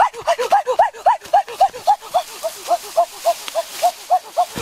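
Domestic turkey calling in a fast, steady run of short rising-and-falling notes, about four or five a second, as it is being chased.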